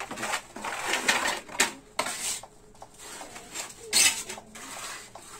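Steel mason's trowel scraping and clinking against a metal pan of cement mortar, with several sharp knocks among the scrapes, the loudest about four seconds in.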